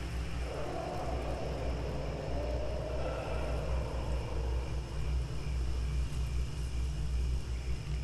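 Steady low rumbling wind ambience, with a drawn-out, wavering mid-pitched moan rising about half a second in and fading away after about four seconds.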